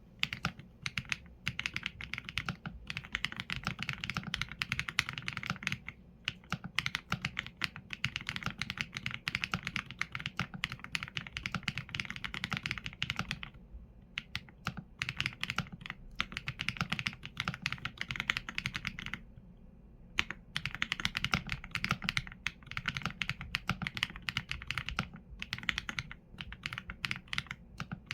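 Steady typing on a Qsenn A75 mechanical keyboard with Leobog Graywood V4 linear switches and PBT keycaps: rapid runs of keystrokes with short pauses, notably one about 19 seconds in.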